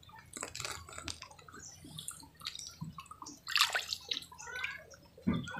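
Shallow pond water sloshing and splashing lightly around wading bare feet, in small irregular splashes with a louder splash about three and a half seconds in.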